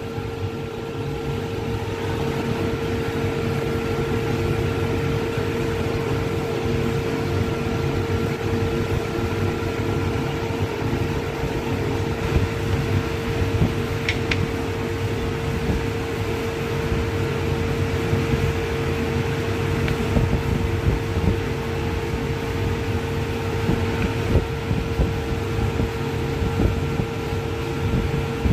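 Steady machine hum, like a fan or ventilation unit running, with a constant mid-pitched whine over a low rumble. A few light knocks come from wooden pieces being handled on a board.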